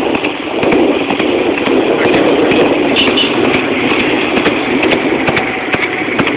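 A horse's hooves clopping on an asphalt road, mixed with the steady running noise of the motorcycle riding alongside it.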